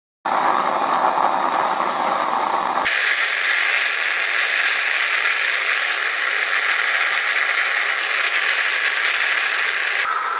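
Steady rushing noise that starts suddenly and changes abruptly about three seconds in and again near the end.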